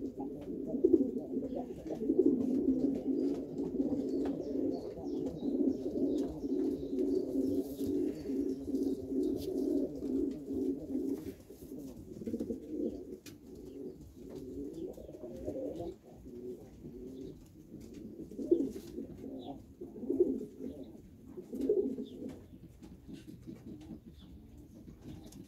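Pigeons' low, throaty cooing and warbling, running almost without a break for about the first eleven seconds, then in shorter bursts.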